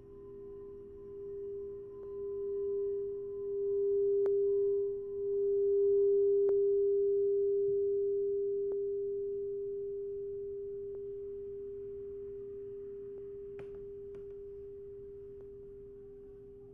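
Singing bowl sounding one steady, pure tone that swells with a wavering loudness over the first few seconds, as when the rim is circled with a mallet, and then slowly rings away.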